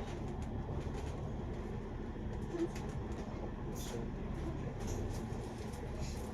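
Double-decker bus running, heard from inside the passenger cabin: a steady low engine and road drone with scattered faint rattles and clicks.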